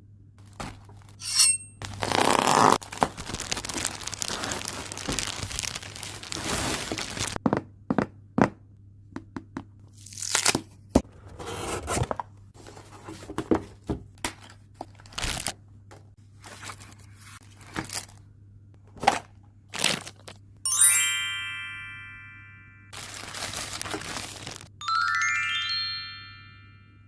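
Unboxing a mechanical keyboard: plastic packaging crinkles and tears, followed by scattered clicks and knocks as the box and keyboard are handled. About two-thirds through, a bright chime rings out and fades slowly. Near the end, a rising run of chime notes plays.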